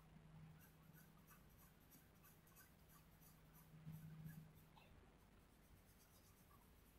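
Graphite pencil scratching on drawing paper in quick, repeated shading strokes, faint, over a steady low hum that grows louder for a moment about four seconds in.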